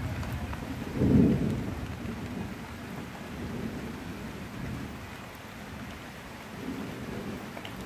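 Thunder rumbling over steady rain, with a louder peak about a second in that slowly dies away.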